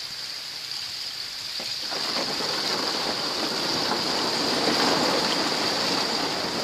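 Small waves washing into the edge of melting lake ice, the loose ice fragments tinkling and clinking together in a dense rain-like patter. It grows louder about two seconds in and stays fuller through the rest.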